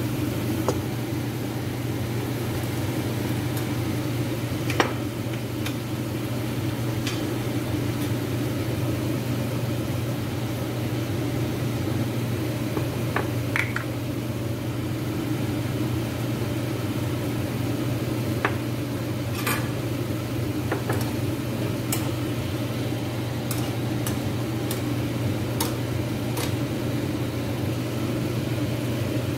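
Steady low machine hum with an even hiss, broken by scattered light clicks and taps as ingredients and a utensil touch a stainless steel pot.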